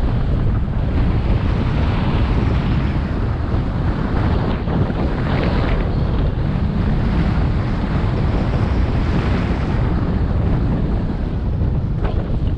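Wind buffeting the microphone, a loud, steady rumble without any tone.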